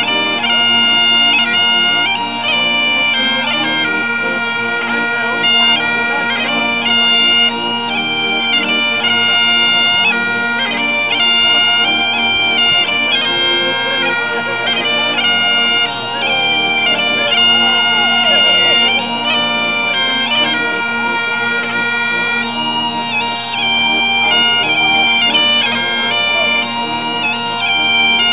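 Highland bagpipes playing a tune, its notes changing quickly over the steady drones, with two accordions playing along.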